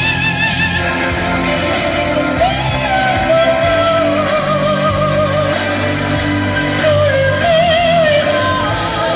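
A singer holding long notes with wide vibrato over instrumental backing music with a steady bass line.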